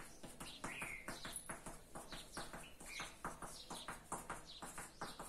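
Chalk on a blackboard: quick, irregular taps and short scratches as small plus signs are marked one after another along a chalk line.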